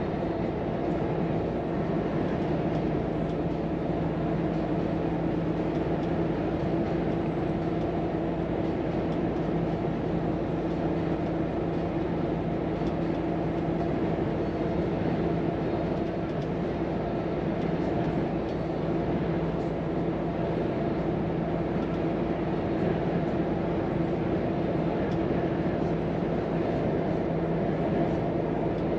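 Volvo FM truck's 13-litre six-cylinder diesel engine running steadily at cruising speed, with road and tyre noise, heard from inside the cab. The engine's pitch holds steady, with no gear change.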